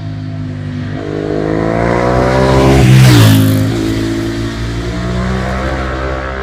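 Ducati 1098S L-twin motorcycle accelerating past: its engine note climbs in pitch as it approaches, is loudest about three seconds in, where the pitch drops sharply as it passes, then runs on lower as it draws away.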